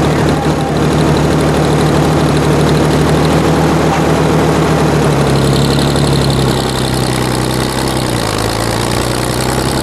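1946 Oliver 70 Row Crop tractor's six-cylinder engine running steadily while the tractor drives along. Its note drops slightly about eight seconds in.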